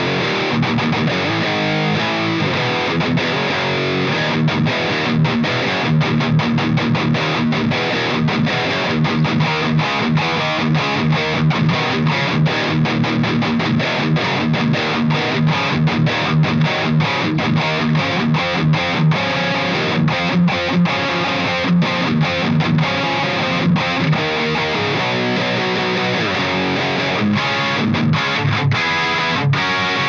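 Electric guitar through an EVH 5150III LBX valve amp head with EL84 power tubes, its clean channel pushed by a KHDK Ghoul Screamer overdrive pedal into a crunch overdrive tone. Riffs with many short, choppy stops between chords.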